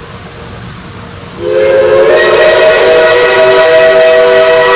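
Shay steam locomotive whistling: a loud, held chord of several notes begins suddenly about a second and a half in, fills out with more notes half a second later, and carries on, over a hiss of steam.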